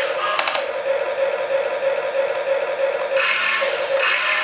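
RC excavator's small electric motors and gears whirring in short spells as the boom and bucket move, once at the start with a few clicks and again from about three seconds in to near the end. A steady hum runs underneath.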